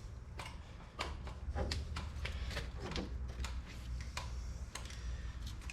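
Scattered light clicks and taps of metal parts being handled: the ATV's rear hub seated on the new axle's splines and the axle-end parts being fitted by hand.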